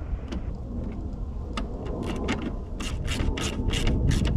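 A zip tie being pulled tight around the coolant overflow hose: a run of about ten short zipping strokes that start about a second and a half in and come closer together toward the end, over a low steady rumble.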